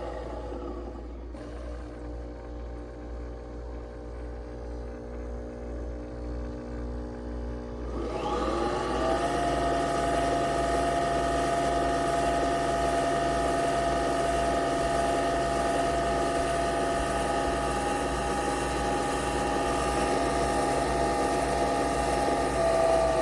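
Small electric motor of a Nespresso appliance running: a quieter steady hum for the first several seconds, then spinning up about 8 seconds in to a louder, steady whirr.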